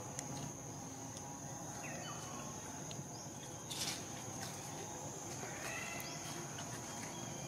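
A steady, high-pitched insect drone, with a few short high chirps about two seconds in and again near six seconds, and a brief rustle near four seconds.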